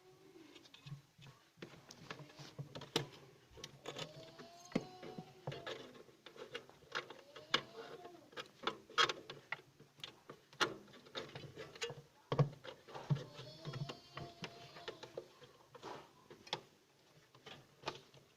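Irregular clicks, taps and knocks of hands handling and fitting plastic parts of a no-frost fridge, with a low hum underneath.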